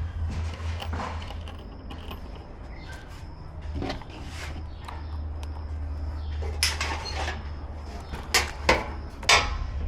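Scattered knocks, clicks and handling noises from gas grill parts being handled and fitted during assembly, with a cluster of louder knocks in the second half, over a steady low hum.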